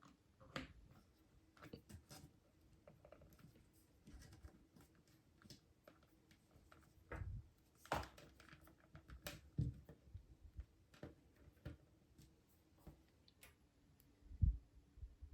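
Sporadic light clicks and knocks of hands handling a USB cable and hardware while plugging it in, with a dull thump near the end, over a faint steady hum.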